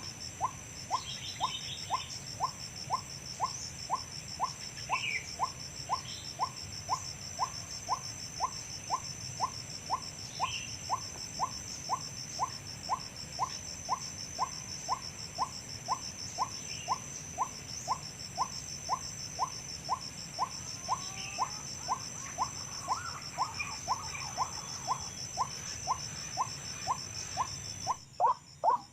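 White-breasted waterhen calls repeated monotonously, about two short notes a second, used to lure the birds, over a steady high insect whine.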